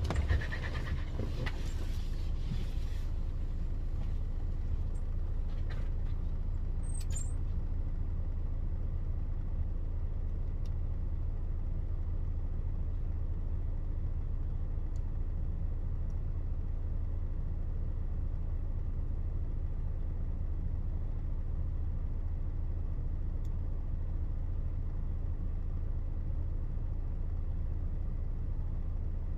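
Box truck's engine idling with a steady low hum, heard from inside the cab.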